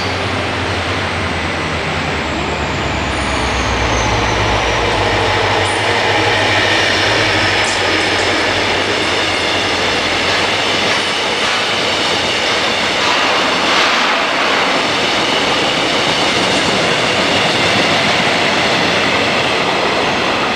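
Korail locomotive-hauled passenger train passing close at speed: a low rumble and a high tone falling in pitch as the locomotive goes by, then a long steady rush of the coaches' wheels on the rails, with faint high squeal and a few clicks from the rail.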